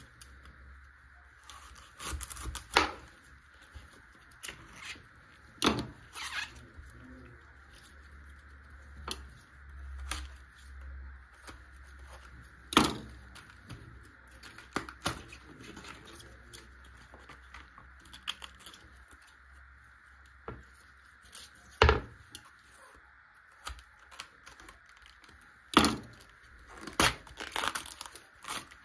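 Crisp outer leaves of a red cabbage being cut at the base with a knife and snapped and torn off the head by hand: sharp cracks a few seconds apart, with rustling leaf sounds between them.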